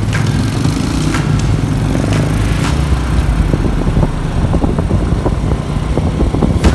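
Motorcycle riding at speed, a steady low rumble of engine and road noise with a few brief whooshes.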